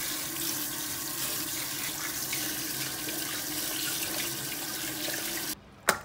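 Kitchen tap running steadily into a steel bowl of blanched soft-shelled turtles in a stainless steel sink, rinsing them, with a faint steady tone under the splashing. The water stops abruptly near the end, followed by a single sharp click.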